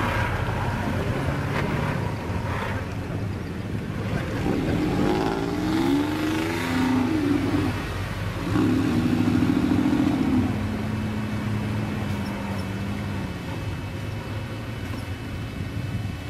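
Off-road trial buggy engines running, one revving up and down in several rising and falling bursts, then holding a high rev for about two seconds near the middle before settling back, over another engine idling steadily.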